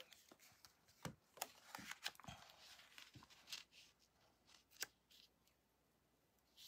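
Faint, scattered taps and brief rustles of cardstock and patterned paper being handled and pressed down as the paper is stuck onto a cardstock mat.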